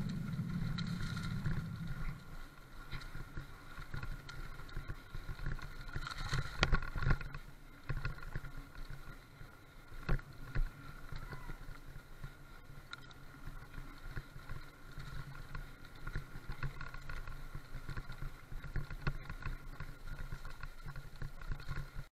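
Mountain bike rolling over a rough forest dirt track: a steady low rumble and rattle of tyres and frame, with a few sharp knocks over bumps, loudest about seven and ten seconds in.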